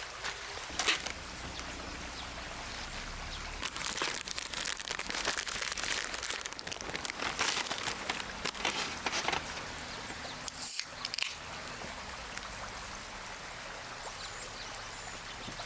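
Steady rush of a creek, with a sharp click about a second in and a run of irregular clicks and crackles in the middle.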